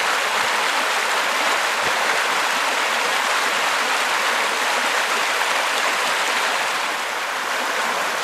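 Small, fast-flowing river rushing over rocks, with white water breaking: a steady rushing of water.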